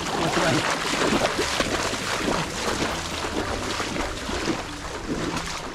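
Water splashing and sloshing continuously, with wind rumbling on the microphone.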